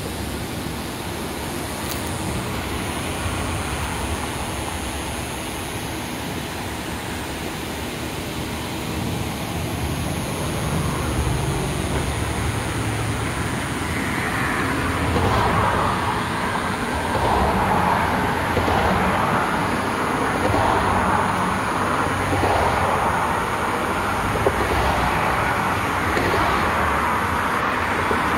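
Hooves of a herd of wild horses trotting and cantering over dusty desert ground, heard as a continuous mass of hoofbeats that grows louder about halfway through.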